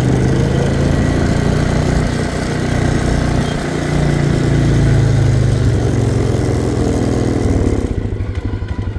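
Small youth ATV engine running, its speed rising and falling as the throttle is worked. Near the end it drops to a lower, pulsing idle.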